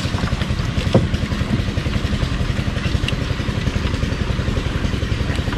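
A small engine idling steadily with a fast, even putter, with a few light knocks.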